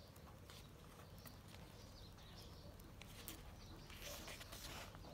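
Near silence with a few faint ticks, then a soft rustle of a paper book page being turned about four seconds in.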